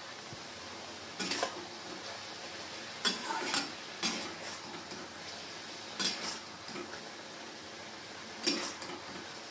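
Metal spatula scraping and knocking against a wok while stirring frying mushrooms, in separate strokes every second or two, over a steady low sizzle from the pan.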